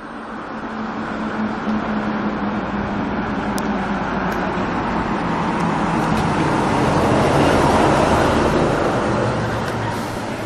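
Honda Little Cub's 49 cc single-cylinder four-stroke engine running. The sound builds steadily to a peak about eight seconds in, then eases off. The bike has a transmission bearing fault that makes an abnormal binding noise.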